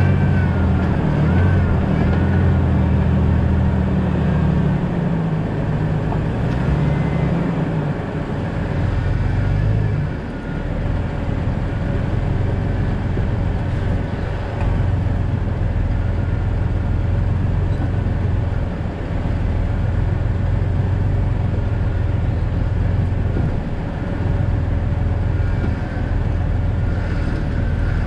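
Jeep Cherokee XJ driving, its engine running steadily under road and tyre noise. The engine note changes about five, eight and ten seconds in, as the speed or load shifts.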